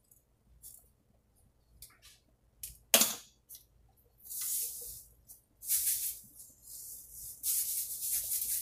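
A sharp knock about three seconds in, then bursts of a shaken rattle that turn into continuous rhythmic rattling near the end.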